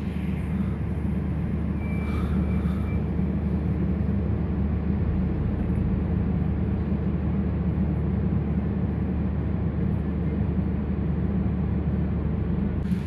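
A steady low mechanical hum that holds at one even pitch throughout.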